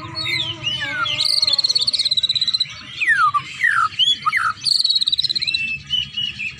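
A caged songbird singing: a rapid high trill, then a run of quick down-slurred whistles, then the trill again.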